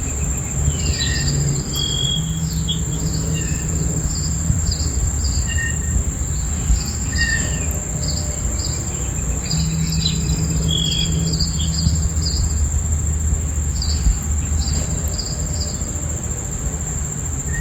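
Crickets trilling in a steady high-pitched drone, with birds giving short chirps throughout, over a steady low rumble.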